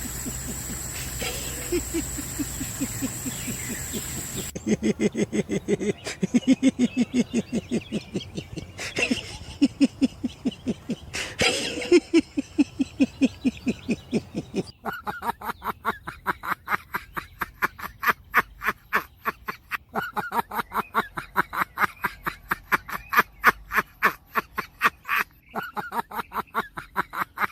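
Animal calls from three spliced outdoor recordings. First a steady high whine with a few low calls. About four seconds in comes a low call pulsed several times a second. From about fifteen seconds a higher, rapid series of call pulses repeats evenly, about four a second.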